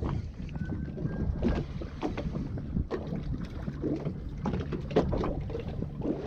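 Small boat at sea: water slapping irregularly against the hull and wind buffeting the microphone over a low steady hum.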